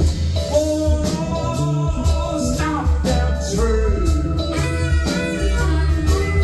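Live blues-rock band playing: electric guitars, keyboard and drums, with a harmonica played into a vocal microphone wailing over the band.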